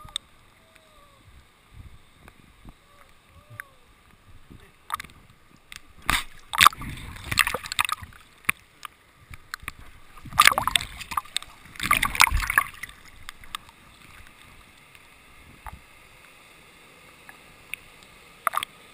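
River water splashing and sloshing against a camera at the waterline, with two louder stretches of splashing in the middle and a few sharp clicks of water hitting the housing.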